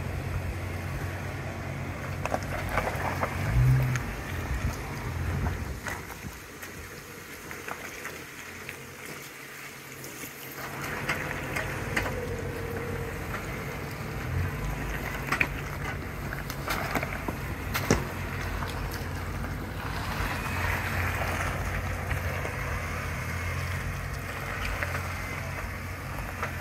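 Jeep Wrangler Unlimited engine running at low revs as it crawls over rock ledges, with a louder surge about four seconds in and occasional sharp knocks.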